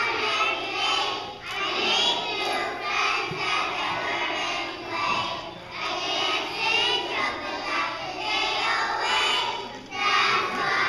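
A group of preschool children singing a song together, loud and continuous.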